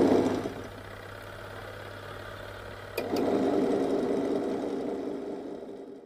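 Twin-tub washing machine wash motor driving the pulsator through a V-belt: it runs down and stops about half a second in, leaving a low hum, then with a click it starts again about three seconds in and runs on, the wash timer stopping and restarting the motor, as it does to reverse the pulsator.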